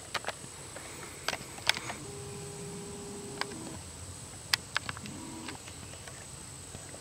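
Video camera being handled while it zooms in: scattered small clicks, and a thin steady whine for about a second and a half starting about two seconds in, typical of the lens zoom motor.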